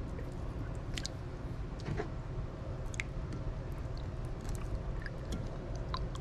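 Flounder pieces being dipped and turned by hand in a bowl of egg wash: wet squishing with a few sharp, scattered clicks, over a low steady hum.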